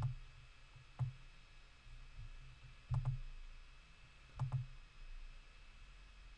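Computer mouse button clicks: single clicks at the start and about a second in, then two quick double clicks a second and a half apart, over a faint steady electrical hum.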